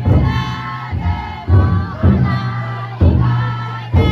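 The futon daiko float's big drum being struck in heavy, uneven beats, about six in all, under a crowd of festival-goers and bearers chanting together in long, held calls.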